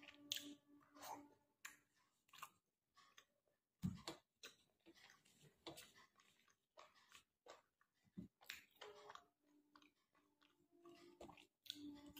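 Faint chewing of food, with soft mouth clicks and smacks at an uneven pace, and a duller thump about four seconds in.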